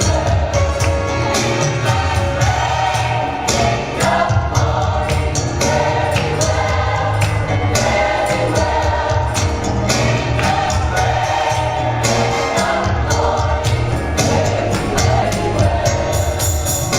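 Gospel choir singing over a band, with a strong bass line and drums keeping a steady beat.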